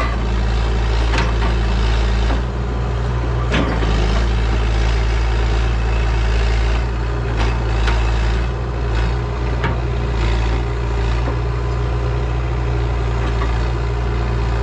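Hitachi EX100 excavator's diesel engine running steadily, with a few sharp knocks or cracks along the way.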